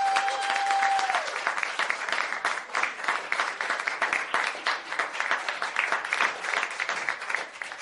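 Audience applause: dense, steady clapping with a single held high note over it for about the first second, easing off slightly near the end.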